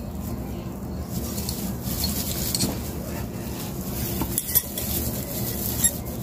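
Light clinks and handling noise of a glass agar culture bottle and metal tools, with a few faint ticks in the second half, over a steady low hum.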